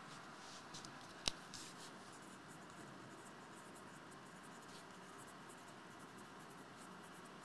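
Faint scratching of a pen writing, in short strokes, with one sharp click about a second in.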